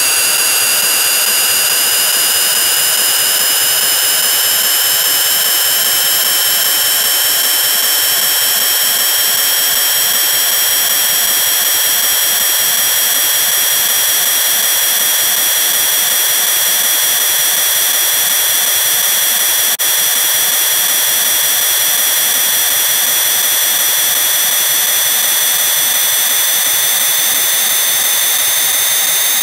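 Harsh, heavily distorted electronic drone from a video-effects audio edit: a high whine with several overtones, slowly rising in pitch, over a loud steady hiss.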